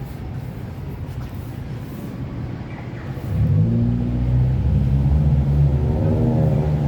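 A motor vehicle engine running close by. It gets much louder about three seconds in and then holds a steady low hum.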